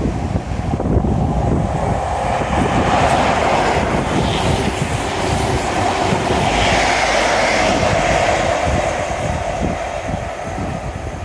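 GWR High Speed Train (diesel power car with Mark 3 coaches) passing close by: diesel engine running and steel wheels clattering over the rails, fading somewhat as it pulls away near the end.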